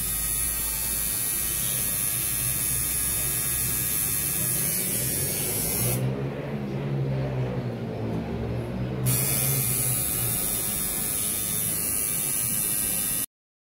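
Electric tattoo machine buzzing steadily while it works a neck tattoo. About halfway through, the sound changes for roughly three seconds and becomes lower and less hissy, then steadies again. It cuts off suddenly near the end.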